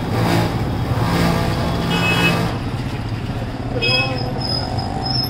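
Sugarcane juice machine running with a steady low hum as it dispenses juice from its spout, amid street traffic and voices. Short high tones sound about two and four seconds in.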